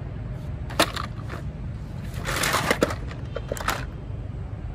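Steady low wind rumble on an outdoor microphone, with handling noise: a sharp click about a second in, a short rustling crunch around the middle, and a couple more clicks a second later.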